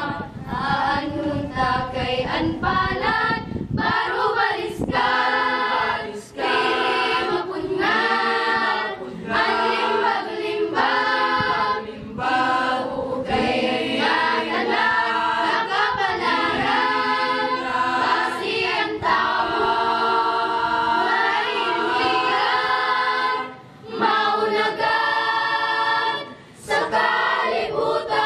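Mixed-voice high-school choir singing a cappella under a conductor: held chords sung in phrases, with short breaths between phrases, two of them near the end.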